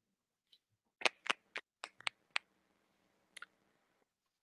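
A run of sharp, short clicks: six irregularly spaced ones about a quarter-second apart, then a quick double click about a second later, over a faint hiss.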